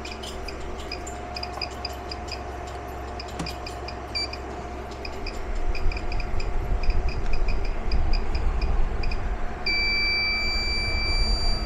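Redodo 2000W pure sine wave inverter chirping under load at about 1,100 watts: a rapid string of short, high-pitched chirps over the steady hum of its cooling fans and the air conditioner it powers. Near the end, as a heat gun is added to the load, the chirping turns into a continuous high-pitched scream. The inverter keeps running and shows no fault icon; the owner does not know why it does this.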